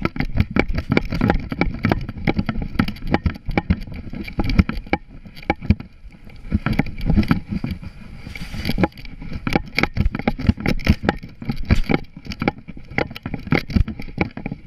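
Handling noise from a GoPro strapped to a running border collie: a rapid, irregular stream of knocks and thumps as the camera jolts with each stride, starting abruptly.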